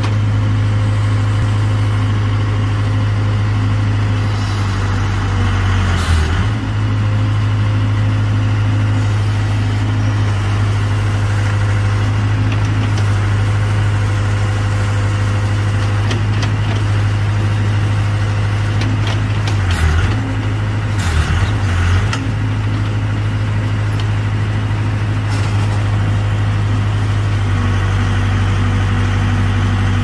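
1992 Case Extend-A-Hoe backhoe's diesel engine running steadily with a deep hum while the backhoe boom is worked, with a few short knocks about six seconds in and again around twenty seconds in.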